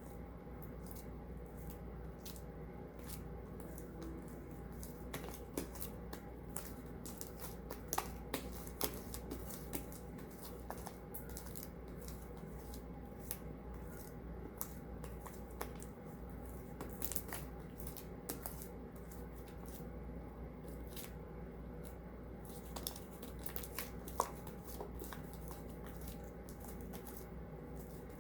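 Sticky homemade slime being kneaded and peeled off hands, making irregular wet clicks and crackles as it pulls away.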